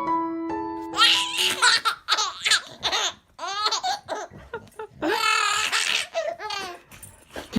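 A baby laughing in several bouts of high-pitched laughter. A few piano notes come first and stop about a second in.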